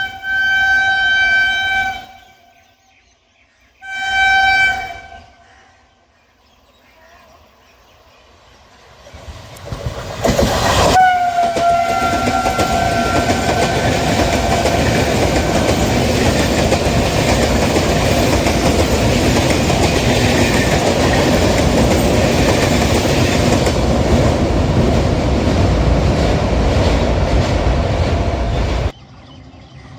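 Indian Railways electric train sounding its horn in two blasts, then approaching and passing at speed with loud wheel and rail noise, sounding its horn once more as it arrives. The pass-by cuts off suddenly near the end.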